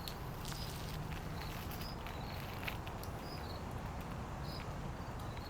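Outdoor background of an insect, cricket-like, giving short high chirps every second or so over a low steady rumble, with a few faint clicks.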